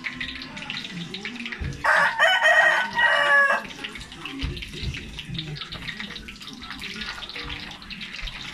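A rooster crows once, loud, about two seconds in, lasting under two seconds. Under it, eggplant slices crackle and sizzle as they fry in hot oil in a wok.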